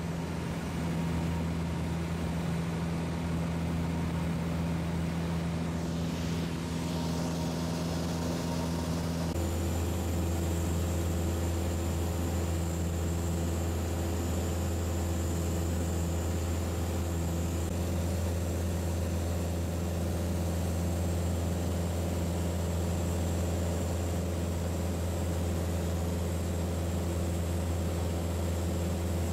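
Piper PA-28's piston engine and propeller droning steadily in cruise, heard inside the cabin. Its tone shifts abruptly about nine seconds in.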